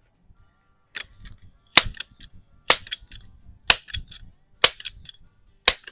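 Multi-pump air rifle being pumped: six sharp clacks about a second apart, one for each stroke of the pump lever, with fainter clicks between them.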